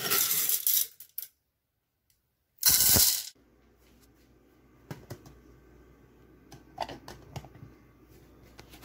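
Whole coffee beans rattling against a stainless steel canister as they are scooped by hand, with a second short rattle of beans about three seconds in. After that come a few faint clicks and knocks.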